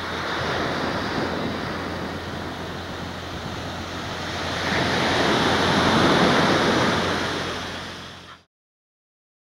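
Ocean surf: a steady wash of breaking waves that swells about halfway through, then fades and cuts off suddenly near the end.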